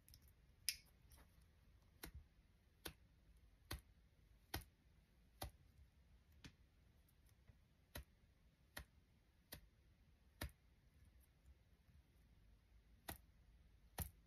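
Light, sharp clicks, about one a second and unevenly spaced, as a fingertip flicks the bristle heads of Japanese makeup brushes to test their snap, the springiness of the hair.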